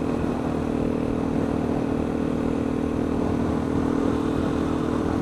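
KTM supermoto engine running at a steady cruising speed on the road, its pitch holding even, over a continuous rush of wind noise.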